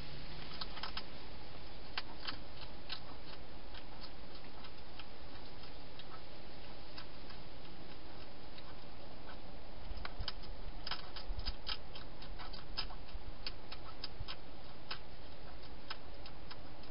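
Irregular crisp clicks and crunches, a few at a time and bunched most densely about ten to thirteen seconds in, over a steady hiss: a wild hedgehog chewing dry food.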